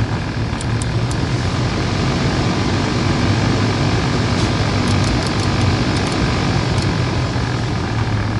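Suzuki Grand Vitara heater blower motor and fan running with a steady hum and a strange, noisy drone rather than the usual cold-start squeal; the blower motor has play in its shaft.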